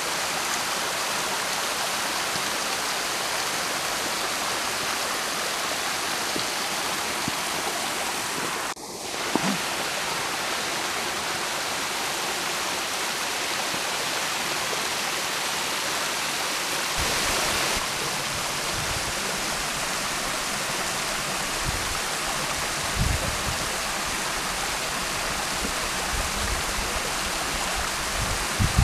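Steady rush of a small waterfall and its stream splashing over rocks. The sound briefly cuts out about nine seconds in. From a little past halfway, low rumbling bumps come and go under the water noise.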